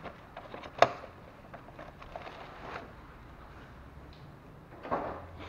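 Handling noises from the new air filter and its plastic packaging: one sharp knock about a second in, a few light clicks, and a short rustle near the end.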